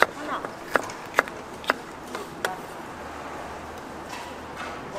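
Knife chopping on a wooden cutting board: five sharp strikes in the first two and a half seconds, irregularly spaced, then none.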